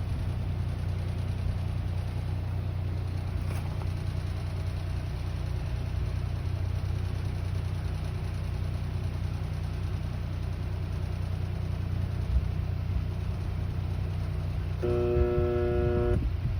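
Outdoor air conditioner unit running with a steady low hum, and near the end a buzz about a second and a half long from the bottom of the unit, the intermittent buzz that has been recurring every few minutes with a cause the owner does not know.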